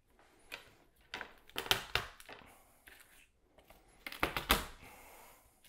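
Fresh garlic clove being peeled by hand, its dry papery skin crackling and tearing in two short bursts of rapid clicks.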